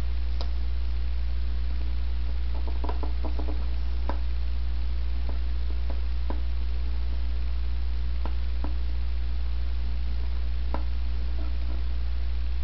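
Fingertips tapping and pressing a vinyl decal onto the plastic headlight shell, making scattered light taps and clicks, with a quick cluster of them a few seconds in. A steady low electrical hum runs underneath and is the loudest sound.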